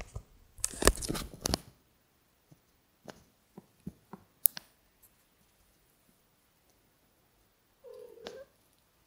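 A cat's paws pawing at and rubbing against a phone camera's microphone: a loud crackly scrape about a second in, then scattered soft taps and clicks. A brief pitched sound comes near the end.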